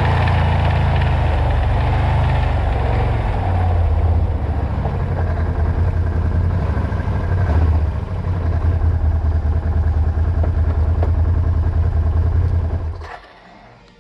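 Can-Am Renegade ATV engine running as it rolls up and then sits idling, a deep steady rumble, until it cuts off suddenly near the end as the engine is shut off.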